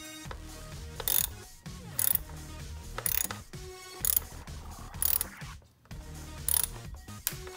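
Hand ratchet with a 10 mm socket clicking in short bursts, about once a second, as it turns the hold-down bolt of a new ignition coil.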